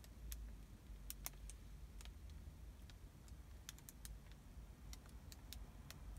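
Faint, irregular sharp clicks and ticks, roughly fifteen spread unevenly, over a low steady hum.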